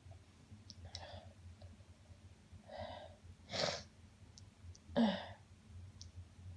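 A woman sneezing and sniffling. There are short breathy sniffs and breaths about one and three seconds in, and two loud sneezes about three and a half and five seconds in, the second the loudest and voiced.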